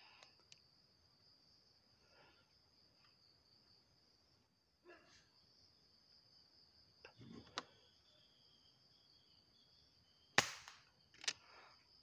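A single shot from a Sharp Pegasus Erthes air rifle about ten seconds in, a sharp crack followed by a fainter second crack under a second later. A steady high-pitched buzz runs underneath.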